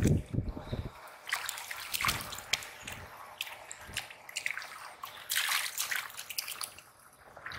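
Hands splashing and scooping in shallow muddy floodwater among weeds: irregular small splashes and drips, with a longer splash about five and a half seconds in as feet wade through the water.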